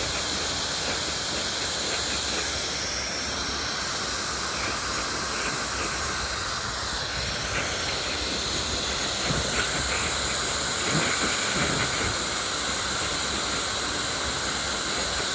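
Dyson hair dryer running steadily on cool air: a rushing hiss of blown air with a thin, steady high whine from its motor.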